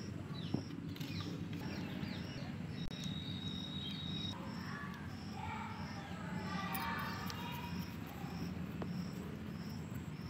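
An insect chirping in an even rhythm, about two chirps a second, with a few bird calls over a low background rumble.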